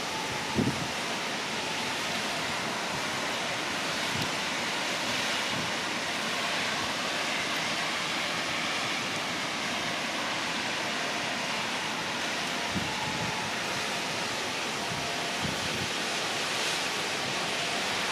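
Steady, even hiss of wet-weather city ambience, with a few soft low thumps, the strongest about half a second in.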